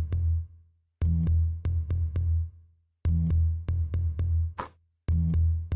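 Electronic background music: a drum-machine beat with heavy bass and sharp percussion hits, in phrases about two seconds long that break off briefly between them.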